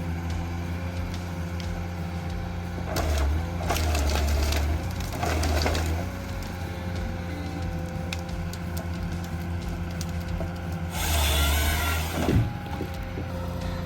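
Engine of a heavy forestry machine running steadily, with wood cracking and splintering in three bursts about three, five and eleven seconds in.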